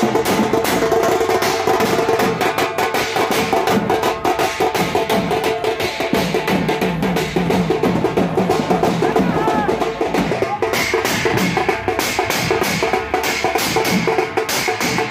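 Procession drumming: large barrel drums beaten with sticks in a fast, continuous rhythm, with a steel plate struck with a stick ringing over the drums.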